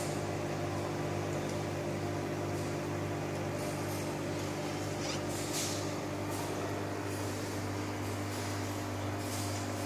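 Large aquarium's pumps and air bubblers running: a steady low electrical hum under a hiss of rising bubbles that swells briefly now and then.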